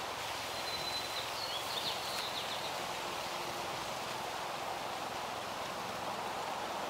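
Outdoor background: a steady, even hiss of open-air ambience, with a few short, high bird chirps in the first two seconds or so.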